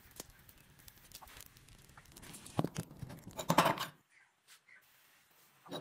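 A hot forged steel blade scraped and knocked against a wooden board, which crackles as it scorches: scattered light clicks, a sharp knock, then a loud rush of scraping and crackling that cuts off suddenly.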